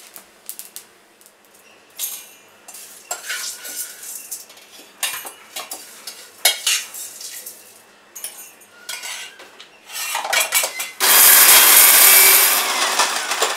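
A steel spoon scrapes and clinks against a steel pan and grinder jar as roasted whole spices are tipped in. About eleven seconds in, an electric mixer grinder runs loudly for under two seconds, grinding the whole spices, then stops.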